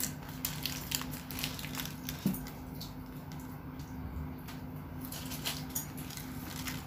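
Close-up chewing and mouth sounds of a child eating a fried chicken sandwich: irregular small clicks and squishes, over a faint steady low hum.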